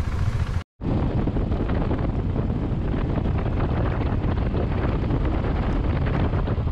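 Steady wind rush over the microphone of a Royal Enfield Himalayan motorcycle cruising on a highway. It follows a brief silent gap just under a second in.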